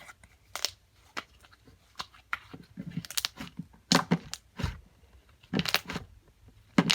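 Turquoise cloud slime being stretched and squished by hand, giving irregular crackling and tearing sounds, louder in the second half.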